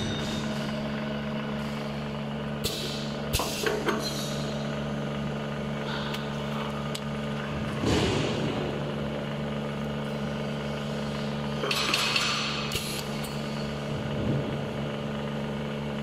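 Pneumatic syringe plugging machine: a steady mechanical hum, with several short hisses of compressed air releasing and a few sharp clicks about three to four seconds in. The longest hiss comes about twelve seconds in.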